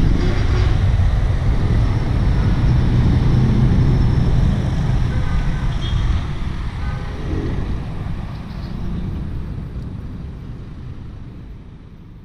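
City street traffic noise, a steady low rumble of passing vehicles, fading out gradually over the second half.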